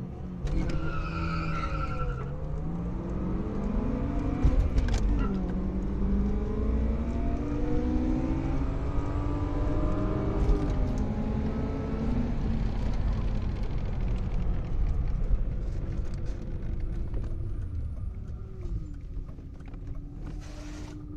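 Car engine under hard acceleration from a launch, heard from inside the cabin: its pitch climbs and drops back several times as it shifts through the gears, then settles lower in the second half. A short high squeal sounds about half a second in.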